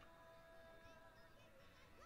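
Near silence, with faint music of long held notes.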